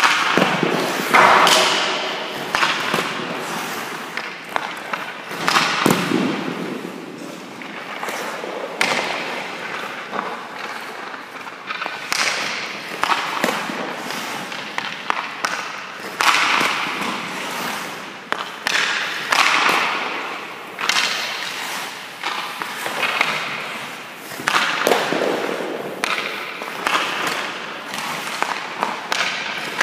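Ice hockey shooting drill: a stick slapping pucks away in quick succession every few seconds, each shot followed by the thud of the puck hitting the goalie's pads, the boards or the net, echoing around the rink.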